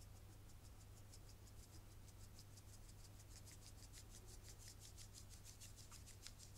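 Very faint, quick rhythmic scratching, about six or seven strokes a second, of dry ingredients such as flour being measured and mixed in a bowl, over a low steady hum.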